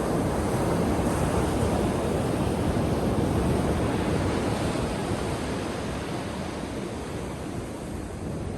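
Ocean waves breaking on a beach: a wash of surf that swells over the first few seconds, then slowly ebbs.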